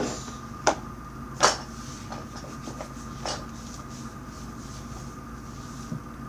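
Two sharp knocks, then a few lighter clicks, as of small objects being handled and set down on a table, over a faint steady high tone.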